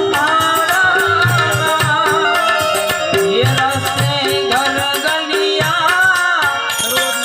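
Song music: a singer's gliding, drawn-out melody over instrumental accompaniment and a steady low drum beat.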